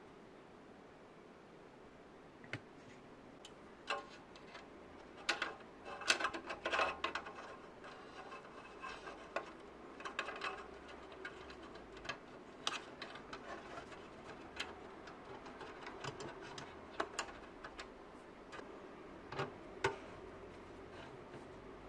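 Irregular light clicks and taps of small hard parts being handled during work on a desktop PC, busiest in the first half.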